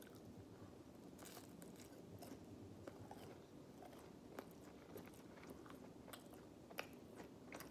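Faint chewing of a chicken nugget, with small scattered mouth clicks and crunches.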